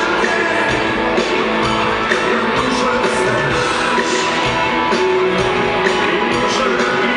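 Live rock band playing loudly and steadily through a concert PA, with electric guitars and drums.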